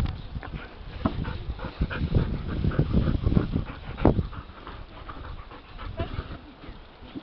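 A young dog panting close to the microphone, open-mouthed, while being scratched under the chin, with uneven breaths and a louder one about four seconds in.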